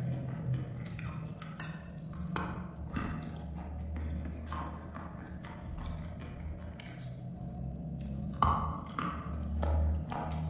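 Close-up chewing of dry chalk: irregular crackling crunches as a mouthful breaks down. One sharper, louder crunch comes about eight and a half seconds in. A low steady hum runs underneath.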